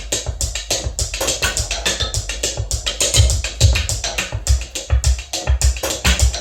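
Percussive beat played by a homemade mechanical acoustic sequencer: a fast, steady run of sharp clicks and knocks over repeating low thumps.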